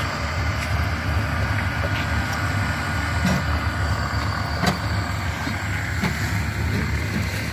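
Cement-block-making machinery running with a steady low mechanical rumble, with a couple of brief knocks in the middle.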